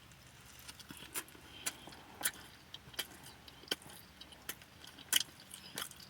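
A person chewing a mouthful of sandwich, heard as scattered short, sharp wet clicks and smacks at uneven gaps.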